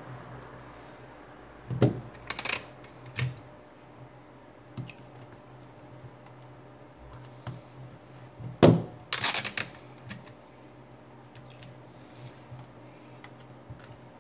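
Small plastic and metal clicks and taps from handling a smartphone and a small hand tool on a silicone repair mat: two clusters of sharp clicks, about two seconds in and about nine seconds in, with scattered light ticks between.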